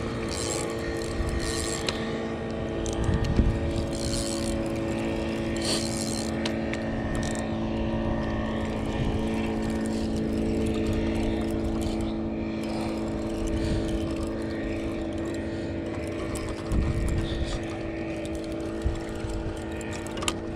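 Steady drone of a motorboat engine running on the water, with a spinning reel being cranked as a fish is reeled in.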